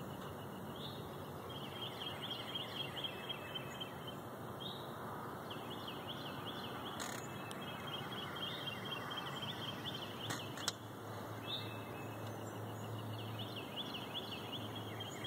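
Outdoor ambience: small birds chirping in quick repeated series over a steady background noise, with a couple of sharp clicks.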